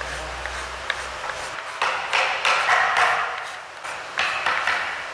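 Flat hand file rasping across the rim of a sheesham (Indian rosewood) ladle bowl in back-and-forth strokes, starting a couple of seconds in.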